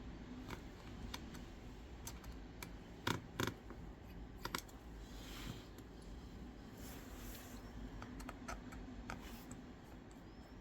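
Small tools clicking and tapping on an opened iPhone's internal screws and metal parts, as irregular sharp ticks with two louder clicks about three seconds in and another pair a second later, over a faint steady hum.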